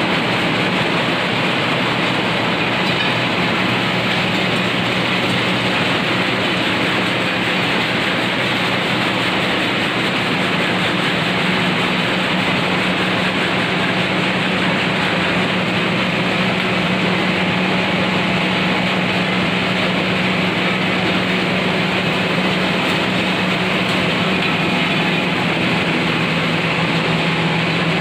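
Turmeric grinding (pulverizer) machine running steadily: a constant loud hum under a dense, rushing grinding noise.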